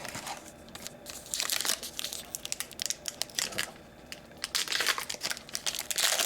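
Foil hockey card pack wrapper being torn open and crinkled by hand: a run of quick, crackly rustles.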